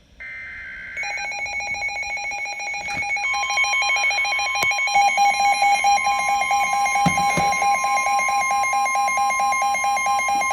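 NOAA weather radios alarming for a severe thunderstorm warning. A short burst of digital header tones comes first, then from about a second in a fast-pulsing electronic alarm beep. About three seconds in, the steady 1050 Hz weather radio warning tone joins it and runs on, and the whole grows louder.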